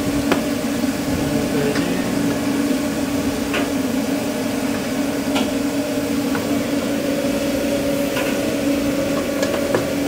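Steady hum of food-truck kitchen equipment such as a ventilation fan or air-conditioning unit, with a few scattered light taps and clicks.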